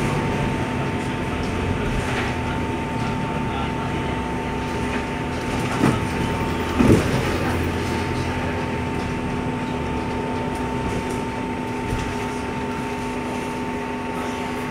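Volvo B5LH diesel-electric hybrid bus heard from inside the cabin while driving: a steady running noise with held tones that do not change pitch. Two short knocks come about six and seven seconds in.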